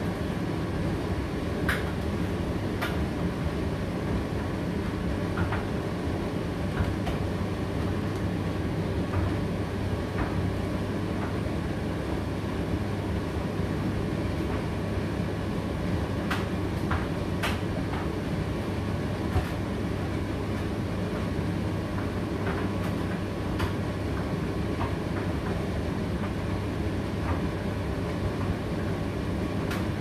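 Indesit IDC8T3 condenser tumble dryer running on high heat: a steady rumble from the turning drum and motor, with a few sharp clicks scattered through it.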